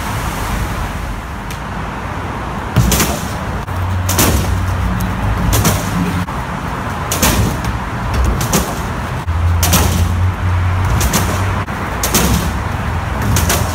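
Skateboard on concrete: wheels rolling and the board clacking sharply against the ground about every second and a half, over a steady rumble of traffic.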